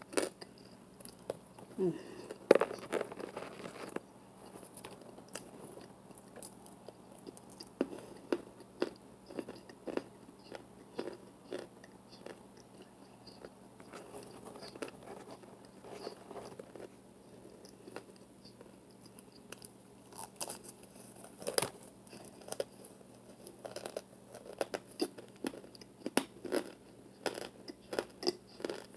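Close-up crunching and chewing of hard chunks of packed arrowroot starch mix: irregular crisp bites and crunches, with a few louder bites about two and a half seconds in and again about twenty-one seconds in.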